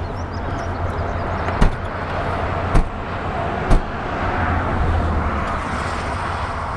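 Steady roadside vehicle noise with a low hum, broken near the middle by three short, sharp knocks about a second apart.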